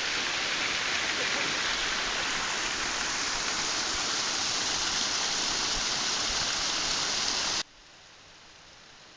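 Steady rush of water falling and splashing from a small waterfall. It cuts off suddenly near the end, leaving a much quieter flowing-water sound.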